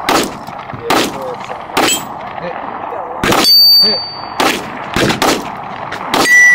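Rifle fire on a range: about eight sharp shots at irregular spacing, some louder and nearer than others. Two of the loudest, about three and six seconds in, are each followed by a brief high ringing tone.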